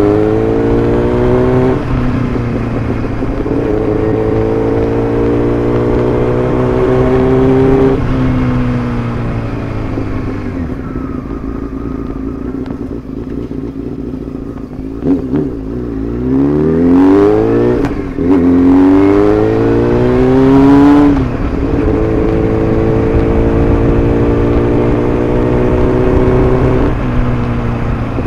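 Honda CBR600F's inline four-cylinder engine running through a homemade slip-on muffler, heard close to the exhaust. It holds a steady pitch for long stretches and eases off about ten seconds in. Between about 15 and 21 seconds the revs climb sharply and drop back three times.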